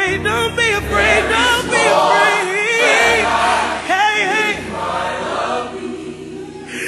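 Music: a song with several voices singing together in harmony over a bass line.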